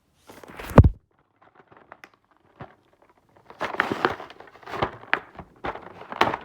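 A toy's cardboard box and packaging being handled and opened: a single thump about a second in, a few faint clicks, then from about halfway a run of crackling, rustling and clicking.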